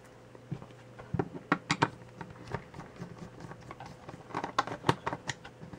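Small screwdriver working screws out of a plastic multimeter case, with small screws handled between the fingers: scattered light clicks and taps, busiest about a second and a half in and again around four and a half to five seconds in. The screws are machine-threaded rather than self-tapping.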